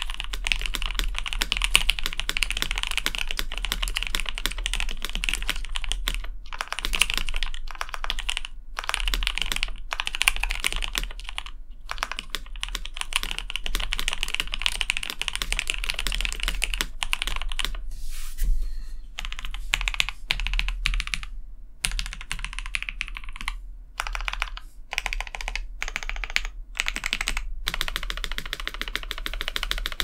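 Fast typing on a KBD67 Lite R1 mechanical keyboard with lubed, filmed Gateron Black Ink V2 linear switches and Cherry-profile keycaps. Dense runs of keystrokes are broken by brief pauses, and the strokes thin out into separate presses in the second half.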